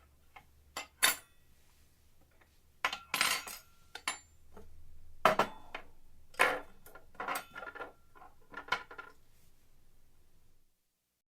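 Irregular clattering and clinking of hard objects knocking together: about a dozen sharp strikes, some ringing briefly, over a faint low hum. It cuts off suddenly near the end.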